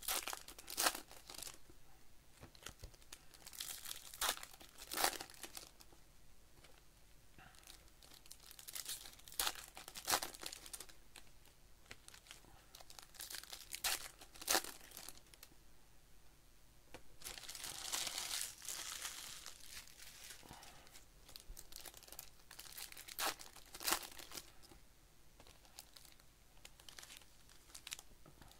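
Plastic-foil wrappers of Bowman baseball card packs being torn open and crinkled by hand. There are sharp crackles every second or two, with a longer stretch of rustling a little past the middle.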